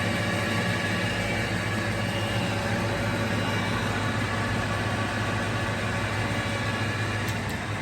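LeBlond Makino Regal engine lathe running under power, the spindle turning at 424 RPM with the carriage power feed engaged in reverse. It makes a steady, even machine hum with several steady gear tones.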